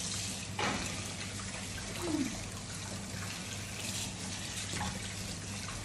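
Kitchen tap running steadily into a sink while dishes are washed by hand, with a few light knocks of crockery against the sink.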